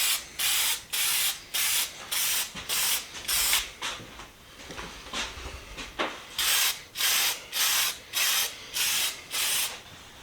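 Clear lacquer sprayed in short hissing bursts, about eight in quick succession, then a pause of a couple of seconds, then about six more.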